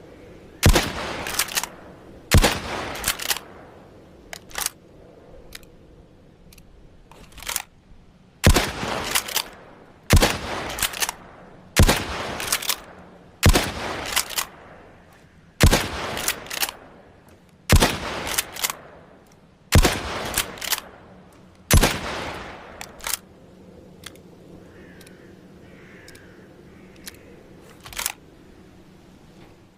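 Mosin-Nagant bolt-action rifle (7.62×54mmR) fired shot after shot, mostly about every two seconds, each sharp report trailing off in an echo, with a few weaker cracks in between and a gap in the firing near the end.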